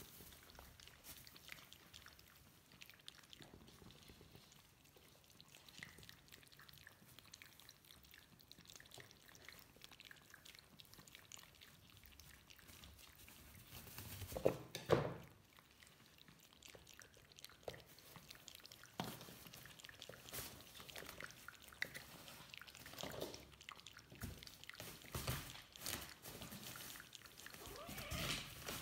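A cat and kitten lapping water from a plastic bowl, heard as faint, quick wet clicks. About halfway through there is a brief, louder knocking.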